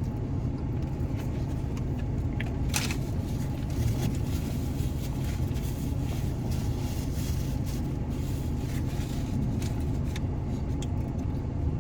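A steady low hum under scattered small clicks and rustles from a person eating a burger and fries, with one louder rustle about three seconds in.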